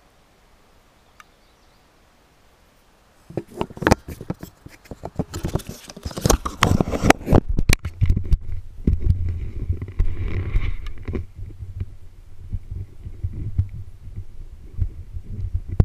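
Knocks and scraping of the camera being handled and mounted, then from about eight seconds in a KTM 200 XC-W two-stroke dirt bike engine running, heard as a muffled steady low rumble.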